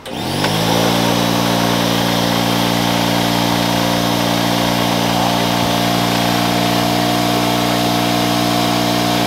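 Boosted Ram 1500 pickup's V8 engine starting and settling straight into a steady idle.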